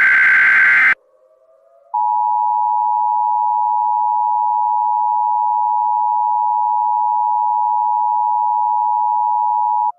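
Emergency Alert System tones: a SAME header data burst, a harsh digital screech, ends about a second in; after a short gap the EAS attention signal, a steady two-tone alarm, sounds for about eight seconds and cuts off.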